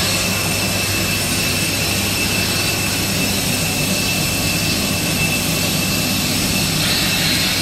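Jet aircraft turbine noise: a steady, loud rush with a high whine held on top.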